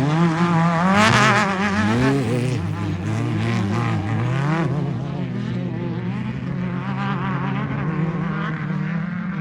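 Off-road race car engine revving up and down, its pitch wavering rapidly, then settling into a steadier run about five seconds in.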